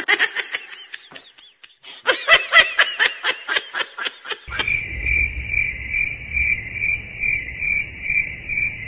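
A quick run of high, rapidly repeated giggling sounds for the first four seconds or so. Then, from about four and a half seconds in, cricket chirping: a steady high chirp pulsing a few times a second, which sounds like an added sound effect.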